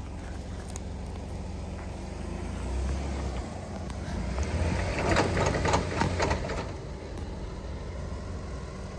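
Jeep Wrangler engine running steadily at low crawling speed, a low rumble, with a spell of crackling and crunching about five seconds in.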